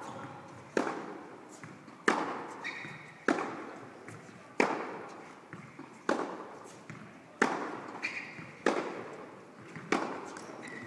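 Tennis balls struck by rackets in an indoor tennis hall: about eight sharp hits, roughly one every 1.3 seconds, each ringing on in the hall's echo. A few short high squeaks fall between the hits.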